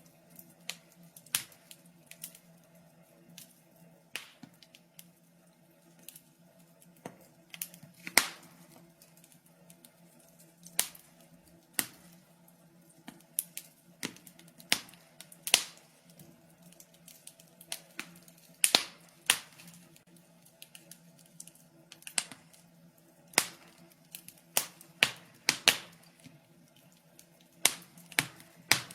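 Wood fire crackling in a fireplace: irregular sharp pops and snaps, a few every couple of seconds, some much louder than others, over a faint steady hum.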